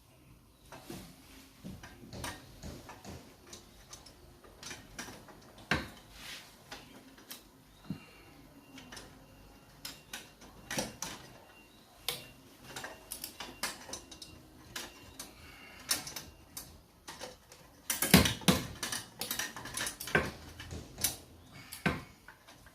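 Irregular metallic clicks, taps and clinks of hand tools and metal engine parts being handled during engine assembly, with a quick run of louder knocks near the end.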